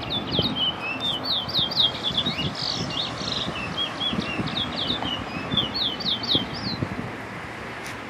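Caged songbird singing a fast, unbroken run of short whistled notes that slur up and down, stopping about seven seconds in, over the low rumble of passing cars.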